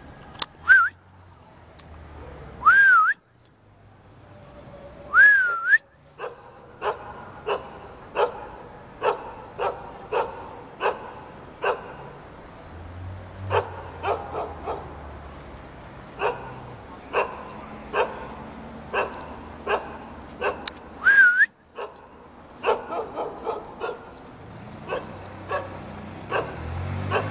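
Jindo dog barking over and over, about one bark a second, coming quicker near the end. Four short rising whistles cut in, three in the first six seconds and one more past the middle.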